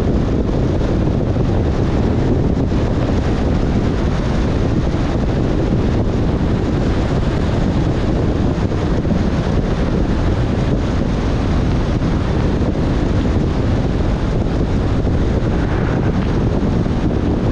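Steady rumbling noise of a car driving on a wet road, heard through a dashcam microphone: wind and tyre noise, heaviest in the low end.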